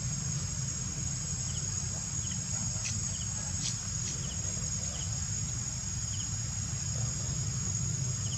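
Steady high-pitched insect drone, such as cicadas or crickets, over a low rumble, with faint short double chirps about once a second and a couple of brief ticks a few seconds in.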